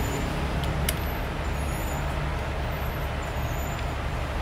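Steady low hum and rumble of background noise, with a faint tick about a second in.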